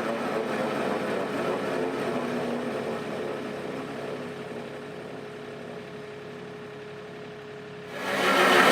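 Mini excavator diesel engine running steadily, growing gradually quieter over several seconds. Near the end the sound jumps abruptly to a much louder engine.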